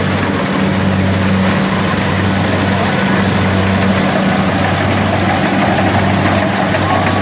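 Rice combine harvester's engine running steadily with a low hum that holds at one pitch.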